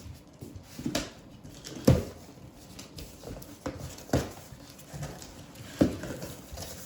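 A series of irregular knocks and thumps, the loudest about two seconds in and near the end.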